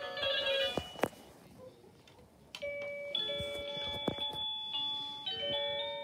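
Byron plug-in wireless doorbell chime playing its electronic melodies: one tune ends about a second in, followed by a click and a short pause. Another tune of stepped beeping notes starts about two and a half seconds in.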